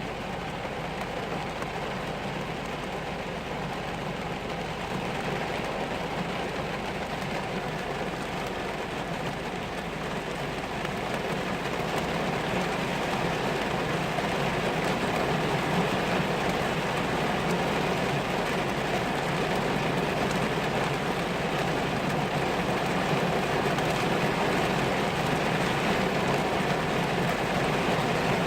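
Heavy rain pouring down steadily, growing louder about a third of the way through.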